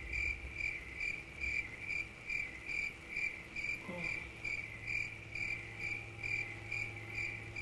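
Cricket chirping sound effect, an even rhythm of about two chirps a second over a faint steady hum: the comic "crickets" gag for an awkward silence while someone draws a blank.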